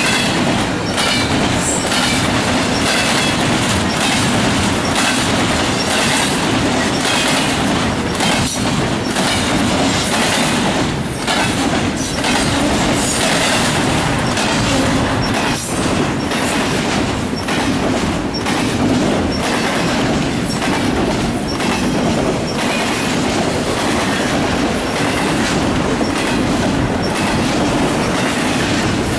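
Double-stack container train of well cars rolling past at speed: a loud, steady rumble of wheels on rail, broken by repeated clacks as the wheels cross rail joints.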